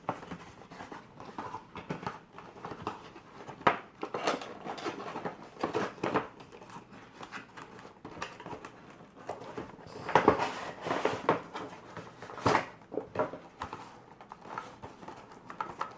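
Action-figure toy box being opened and handled: irregular crinkling, rustling and scraping of packaging with scattered taps, loudest about ten and twelve seconds in.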